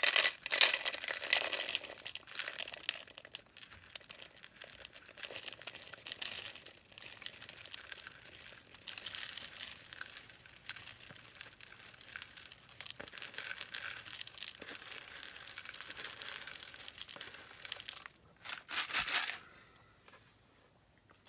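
A bag of old-fashioned oats crinkling and rustling as the oats are measured out, with louder crinkling at the start and a short burst near the end.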